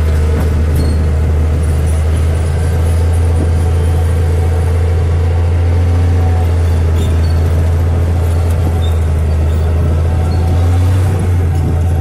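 Heavy-equipment diesel engine running steadily, a loud, even low drone with a few faint metallic clicks over it.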